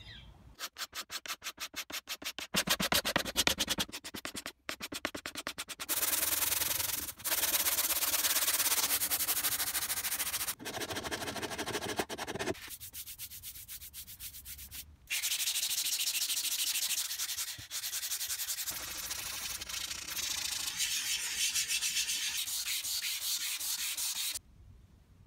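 Sandpaper rubbed by hand over the table's wooden pieces to take off the old finish. It starts with quick, rhythmic back-and-forth strokes, then runs in several longer bursts of scraping with short pauses between them, and stops shortly before the end.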